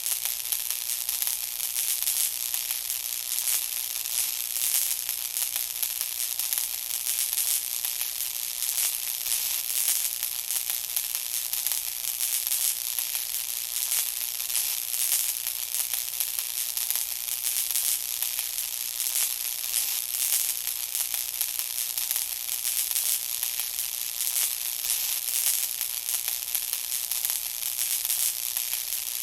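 Electric arc sound effect: a steady, high-pitched crackling sizzle made of dense fine crackles, with no hum beneath it.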